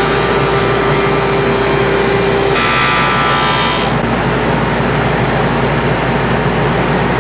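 Table saw with a dado blade running and cutting a dado in a cherry board. The sound is loud and steady, and its tone changes about two and a half seconds in and again about a second later.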